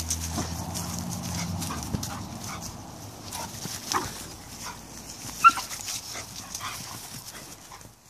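Dogs at play, giving a scatter of short, high yelps and whines, the sharpest about five and a half seconds in.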